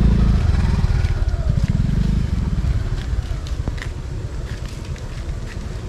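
A motorcycle engine running with a fast, even pulse. It is loudest in the first two seconds, then fades steadily.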